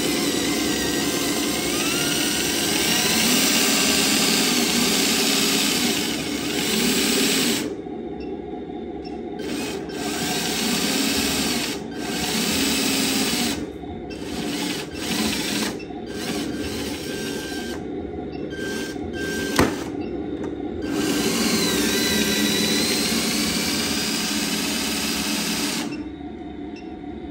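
Electric hydraulic pump of a 1/12-scale RC Volvo FH16 dump truck whining as the ram tips the bed up. The whine stops briefly and restarts several times, and there is a single sharp click about twenty seconds in.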